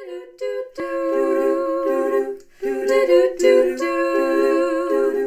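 Female a cappella group of four singing wordless close-harmony chords, humming rather than words, in held chords with a short break about two and a half seconds in.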